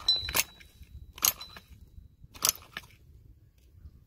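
Pull-starter of a Losi 8 nitro truggy engine yanked in three short pulls about a second apart, with the exhaust blocked by a finger to prime fuel up into the engine.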